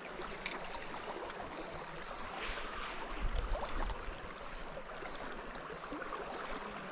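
A clear mountain river running over a riffle: a steady rush of moving water, with a brief low rumble about three seconds in.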